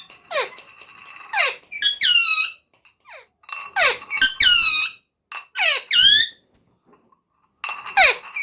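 A parrot giving repeated shrill squawking calls, some falling sharply in pitch, in bursts about every one to two seconds with a short pause a little past the middle.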